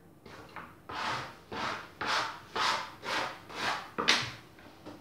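Rhythmic rubbing strokes, about two a second, seven main strokes after a couple of fainter ones, as of hands or dough working against a surface during pastry-making.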